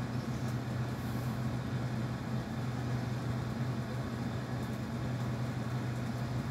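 Chicken karahi frying over high heat in a nonstick wok while a wooden spatula stirs it, giving a soft, even frying noise. A steady low hum runs under it throughout.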